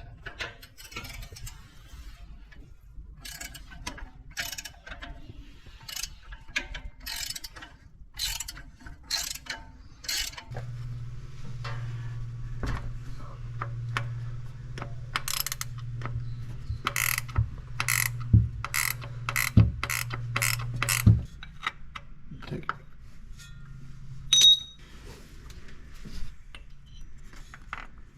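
Hand ratchet wrench clicking in short runs of strokes as bolts on a transmission shift-linkage bracket are worked loose. A steady low hum runs under it for about ten seconds through the middle.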